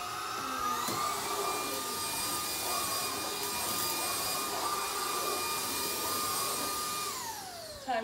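Kenmore DS4020 cordless stick vacuum in handheld mode cleaning carpeted stairs: a steady motor whine with suction noise. The whine steps up in pitch about half a second in, then winds down and stops near the end.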